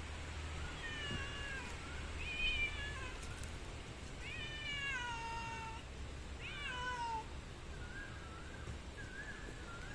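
A cat meowing: four faint, drawn-out meows that fall in pitch, the longest about a second and a half near the middle, then a few short, fainter calls near the end.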